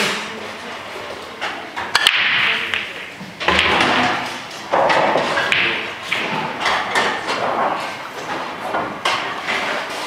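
Blackball (English eight-ball) pool break-off: the cue ball cracks into the racked pack about two seconds in, then the balls knock against each other and the cushions in a run of irregular clicks and thuds as they spread across the table.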